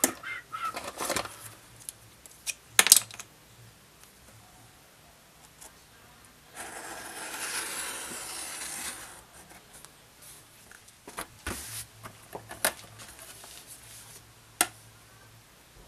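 Objects being handled on a workbench: scattered clicks and knocks, with a steady rubbing noise lasting about two and a half seconds midway.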